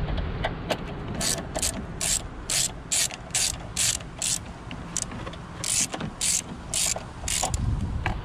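A ratchet wrench backing off the 8 mm body ground bolts: a quick buzz of pawl clicks on each back-swing of the handle, about two strokes a second, starting about a second in, around a dozen strokes with a short break midway.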